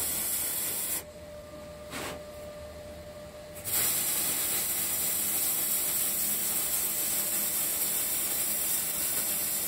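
Pulsed MIG welding arc on steel, a steady hiss. The arc stops about a second in and strikes again a little under three seconds later, then runs on steadily.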